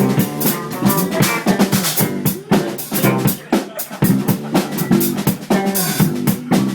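A live band plays a steady beat on a drum kit, with snare and kick hits over electric guitar.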